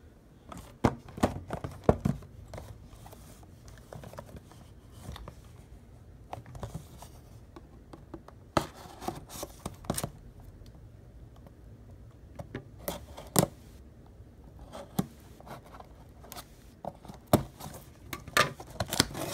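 A cardboard blaster box of trading cards being handled and opened: scattered sharp clicks, scrapes and rustles of cardboard and plastic wrap, with no steady sound underneath.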